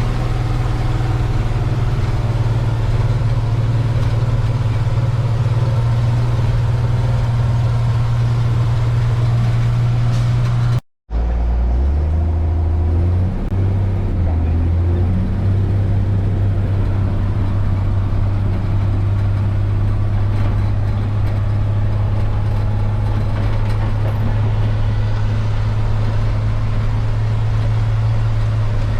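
Heavy farm-machinery engine running steadily under load during corn silage chopping. After a break about eleven seconds in, the engine runs lower, then picks up and settles back to a steady speed.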